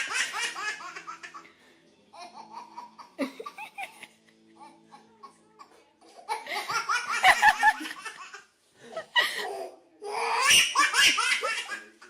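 A young child laughing hard in several long bursts with short pauses between them.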